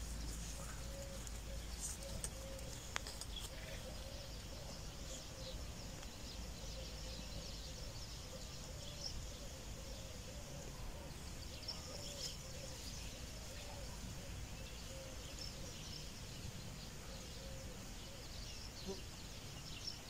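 Outdoor ambience of many small birds chirping and singing over a low steady rumble, with a faint wavering call repeating over and over through most of it.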